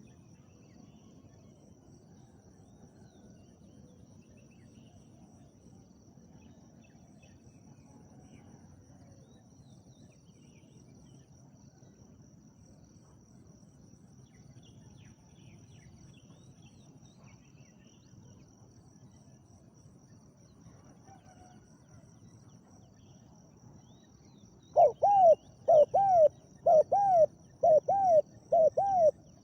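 Quiet outdoor ambience with faint distant bird chirps and a steady high insect whine; near the end a spotted dove breaks into loud, rapid cooing, a run of arched notes at about two a second.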